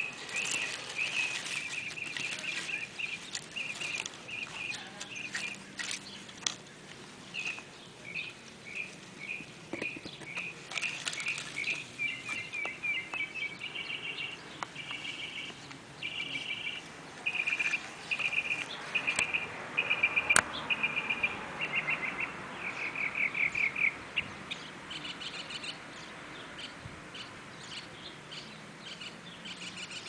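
An animal calling over and over: a long run of short calls at much the same pitch, roughly twice a second, some broken into quick pulsing trains. Fainter, higher calls come in over the last few seconds.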